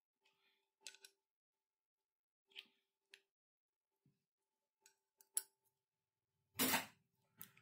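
Sparse small metallic clicks and clinks of surgical instruments, a hand chuck on an intramedullary pin and steel forceps, as the pin is worked by hand. A brief, louder scuffing noise comes a little before the end.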